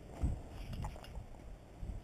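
Low thuds and rustling from a player's footsteps and kit close to a body-worn camera. The loudest thud comes about a quarter second in.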